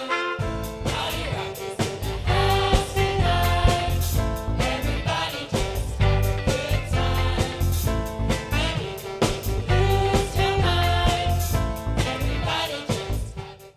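A group of student singers singing a song together, backed by a trumpet section and a band whose low accompaniment comes in about half a second in.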